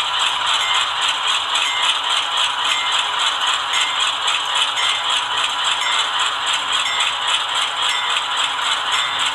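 Diesel locomotive engine sound from the ESU LokSound decoder in an HO scale GE C44-9W model, idling at low throttle through the model's small onboard speaker: a steady rattling run with an even, fast beat.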